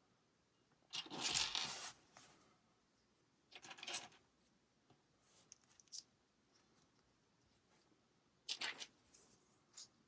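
Plastic Lego pieces being handled during assembly: three short bursts of rattling and rustling, the first and loudest about a second in, with small clicks between them.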